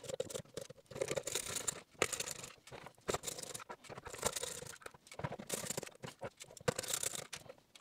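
Screwdriver turning screws out of a DJI FPV remote controller's plastic shell: a scattered run of scratchy rubbing noises and small clicks as the tool and hands work against the plastic and rubber grip flaps.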